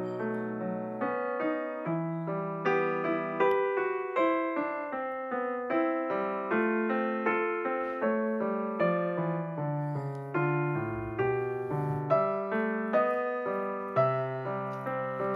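Background piano music: a gentle melody of notes struck about twice a second, each left to ring and fade.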